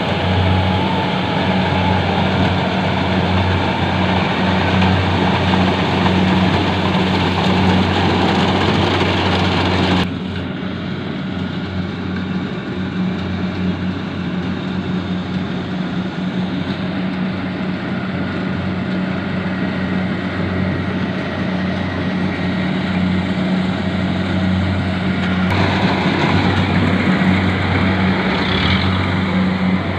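Rice combine harvester running steadily while cutting rice: a constant engine drone under a dense mechanical rush. The sound changes abruptly about ten seconds in and again a few seconds before the end.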